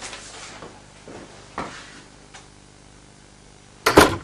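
A door being handled and shut: a few soft knocks and clicks, then a loud, sharp double knock near the end.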